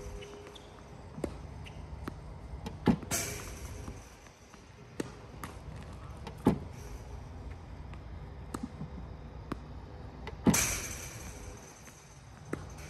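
Tennis Tutor ProLite battery ball machine firing tennis balls, a sharp thump about every four seconds, three times. Fainter taps of balls being hit and bouncing on the court come in between.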